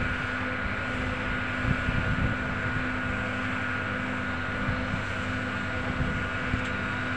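Diesel engine of a Volvo double-drum road roller running steadily, a constant droning hum, with wind rumbling on the microphone.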